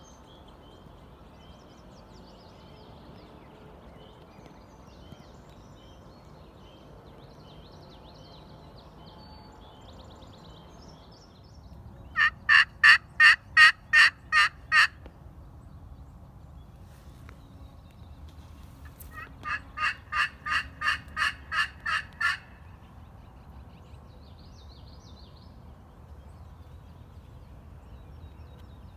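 Turkey calls: two loud runs of evenly spaced notes, about three a second. The first run of about eight notes comes near the middle, and a softer run of about ten follows a few seconds later, over faint birdsong.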